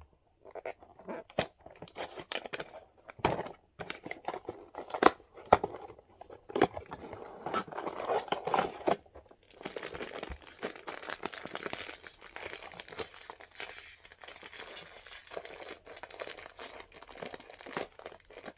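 A plastic snack packet being torn open and crinkled by hand: sharp crackles and rips through the first half, then steadier crinkling of the wrapper.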